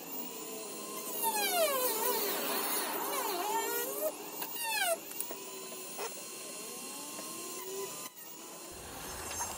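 Harbor Freight rotary tool with a small cut-off wheel cutting a thin ABS plastic front lip spoiler. Its high whine repeatedly dips and recovers in pitch as the wheel works through the plastic.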